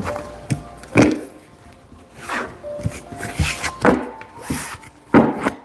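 A deck of tarot cards being shuffled and handled on a cloth-covered table: irregular soft rubs and taps, the sharpest about a second in and near the end, with faint background music.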